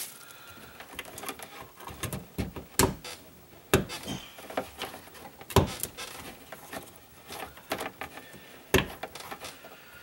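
Scattered light clicks and knocks of hands working rubber fuel hoses onto the plastic fittings of a Saab 9000's fuel pump module, with four sharper knocks spread through.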